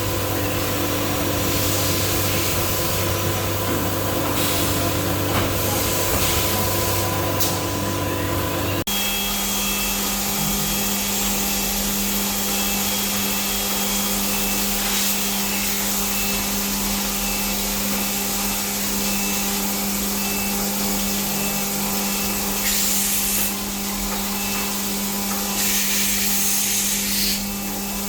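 CNC machine-shop machinery running: a steady motor and spindle hum with high hiss. About nine seconds in it switches abruptly to a different steady hum with a faint, evenly repeating high tone, and a couple of short louder stretches of hiss come near the end.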